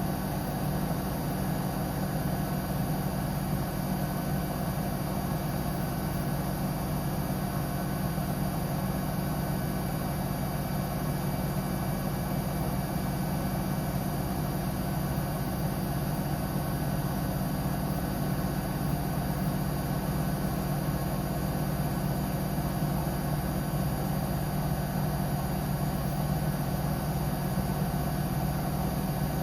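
Samsung Eco Bubble WF80F5E5U4X washing machine drum spinning at a steady speed, a constant hum with steady tones.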